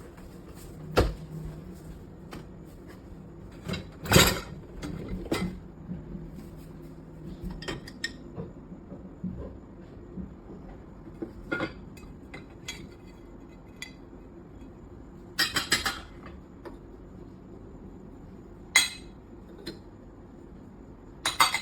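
Dishes, glassware and cutlery being handled, with irregular clinks and clatters; the loudest comes about four seconds in and a quick run of clatters comes around two-thirds of the way through. A low steady hum runs underneath.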